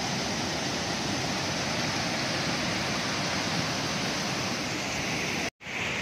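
A waterfall and a fast stream rushing over rocks, making a steady, even rush of water. About five and a half seconds in, the sound drops out for an instant and then resumes.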